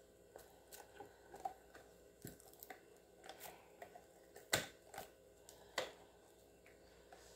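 Faint handling noise as hands flex and pull a silicone mold off a cured resin casting: scattered soft clicks and rustles, with the sharpest taps about four and a half and six seconds in.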